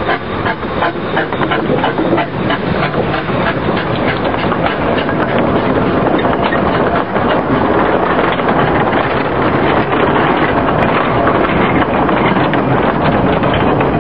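Narrow-gauge steam locomotive passing close with regular beats for the first few seconds, followed by a rake of wooden goods wagons rolling by with a steady rumble and clickety-clack over the rail joints.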